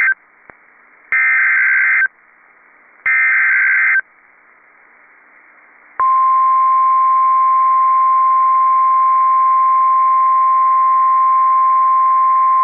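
NOAA Weather Radio Specific Area Message Encoding (SAME) header: a harsh, modem-like data burst of about a second, repeated with a second's gap, three in all, the first already under way. About six seconds in, a steady, loud, single high tone starts: the 1050 Hz warning alarm tone that announces a new warning.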